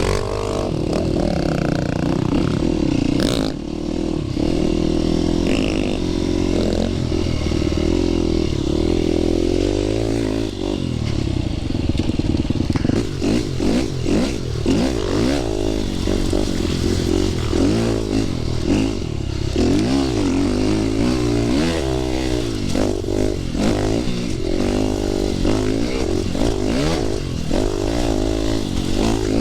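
Dirt bike engine running under a rider, its pitch rising and falling as the throttle is worked, with rattles and knocks from the bike over rough trail ground through the second half.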